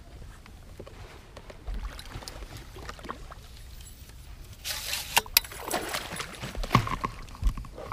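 Hooked largemouth bass splashing and thrashing at the surface beside the boat in repeated bursts from about five seconds in, as it is played to the net; a few small knocks of rod and reel handling come before it.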